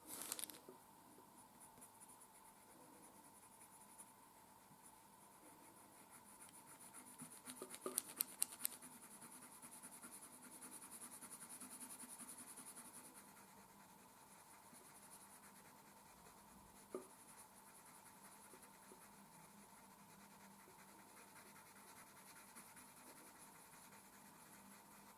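Faint scratching of a coloured pencil on paper, swelling for a few seconds near the middle, with a quick run of light ticks about eight seconds in.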